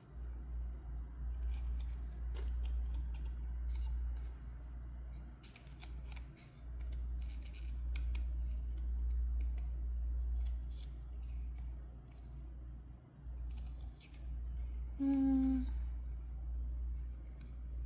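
Scattered light clicks and ticks from handling pins and a beetle specimen while setting its legs for pinning, over a steady low hum. A short hummed note sounds about three-quarters of the way through.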